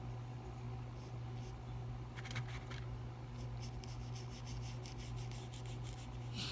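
Light scratching and rubbing on paper: a few short clicks about two seconds in, then a run of quick faint scratches through the second half, over a steady low hum.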